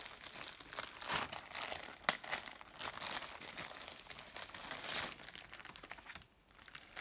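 Clear plastic magazine wrapper crinkling and rustling as hands pull the magazine and seed packets out of it, the crackle dying down near the end.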